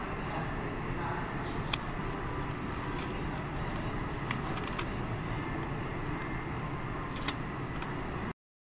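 Steady low background rumble with a few faint ticks and paper rustles from a pen and notebook being handled; the sound cuts off suddenly near the end.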